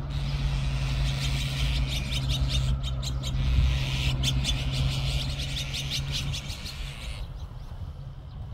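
A flock of azure-winged magpies calling together in a dense, noisy chatter of quick harsh notes, which breaks off abruptly about seven seconds in. A steady low traffic hum runs underneath.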